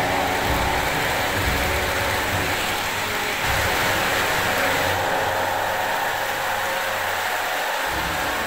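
O gauge model trains running on the layout's track: a steady rumble of wheels and locomotive motors.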